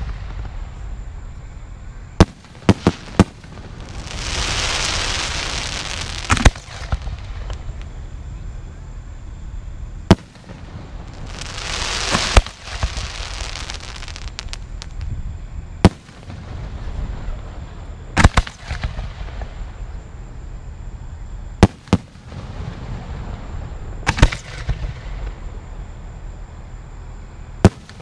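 Aerial fireworks shells launching and bursting, a sharp bang every few seconds. Between the bangs come two longer swells of hissing noise, each a couple of seconds long.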